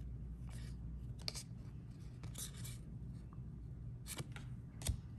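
Cardboard baseball trading cards being handled and slid against each other in the hands, giving a few short scrapes and ticks spread through a faint background hiss.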